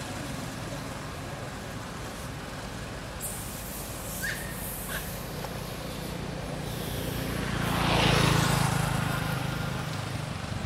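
A road vehicle passes by, its noise swelling to its loudest about eight seconds in and then fading, over a steady low background hum of traffic. Two short high chirps sound about four and five seconds in.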